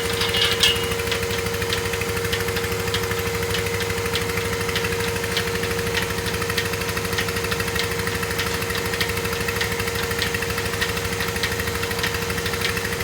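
Milking machine running steadily: an even motor hum with a constant tone, with light ticks scattered over it and one sharper click about half a second in.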